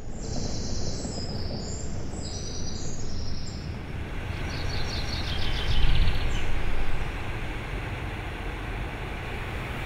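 Outdoor ambience: a steady low rumble of distant traffic, with birds chirping over it in the first few seconds. The rumble swells briefly about six seconds in.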